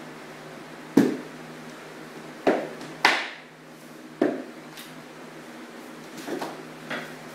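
White rubber mallet knocking on engineered hardwood planks, seating the lock-and-fold joints of a floating floor laid over foam underlayment: four sharp knocks in the first half, then two lighter ones near the end.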